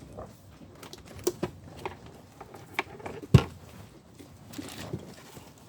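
Scattered small clicks and taps of hands handling a small part and tool at a car's rear light housing, with one louder knock about three and a half seconds in.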